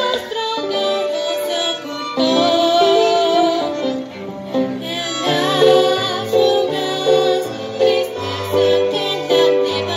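Live ensemble music from violins, cello and keyboard, with a young female voice singing. Sustained low bass notes join about halfway through.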